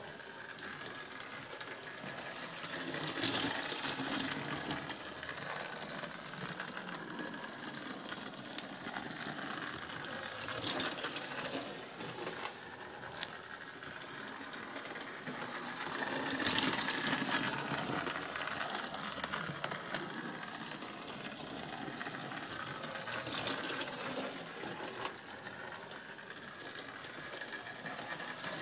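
Vintage Marx steam-type electric toy locomotive running on three-rail tinplate track: a steady small-motor whir with the wheels rattling on the metal rails. The sound grows louder about every six or seven seconds as the engine comes round the oval.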